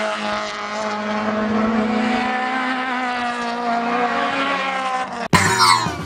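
Race car engine held at high revs, a steady buzzing note that wavers slightly. About five seconds in it cuts off abruptly and a short whoosh sweeps downward in pitch.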